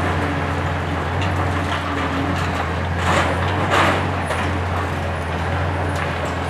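Hitachi ZX 870-3 high-reach demolition excavator's diesel engine running steadily. Concrete rubble crashes down twice, about three and four seconds in, as the top of the tower block is broken away.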